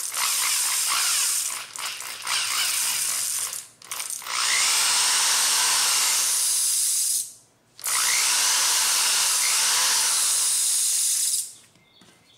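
Cordless drill (yellow-and-black DeWalt 20V) running in four stretches of one to four seconds with short pauses between, its bit boring holes through a tough black float, which is not easy to drill through.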